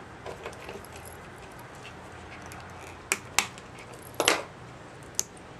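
Plastic wiring-harness ECU connector and its wires being handled: a few sharp separate clicks in the second half, one of them a short rattle.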